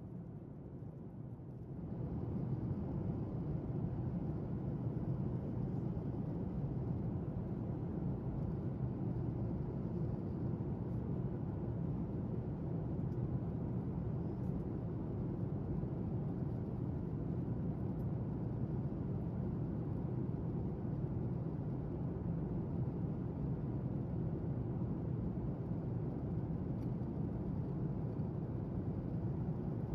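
Steady airliner cabin noise in flight aboard a Boeing 737 MAX 8: a constant low rush of airflow and engine hum. It comes in louder about two seconds in.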